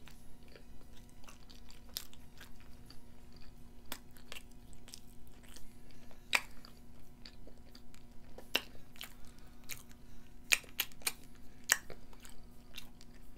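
Close-miked chewing of food, with irregular wet clicks and smacks of the mouth and lips. A faint steady hum runs underneath.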